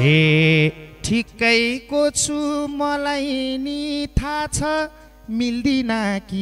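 A man's voice singing a line of Nepali dohori folk song with little accompaniment. He draws out long held notes, some with a wavering pitch, broken by short pauses for breath.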